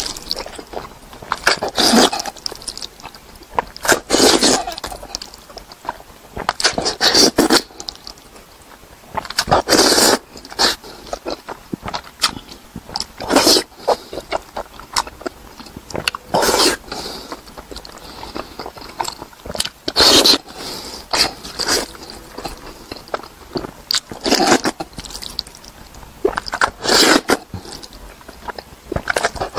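A man slurping and chewing instant noodles, close to the microphone: a loud slurp about every three seconds, with smaller chewing clicks in between.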